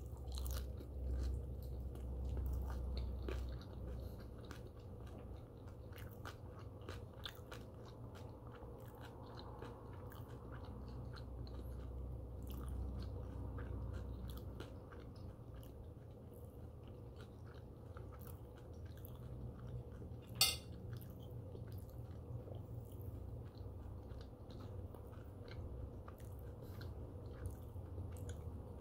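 A person chewing crispy turkey bacon close to the microphone, with small crunches and wet mouth clicks throughout and one sharper crack about two-thirds of the way through.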